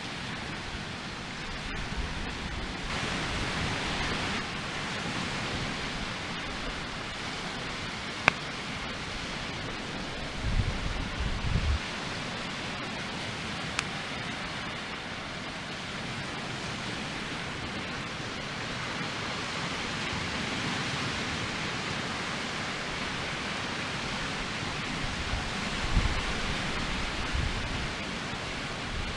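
A log fire burning as a Swedish torch in a breeze: a steady rushing hiss of wind and flame, with a single sharp crackle about eight seconds in. Low rumbling buffets of wind on the microphone come twice.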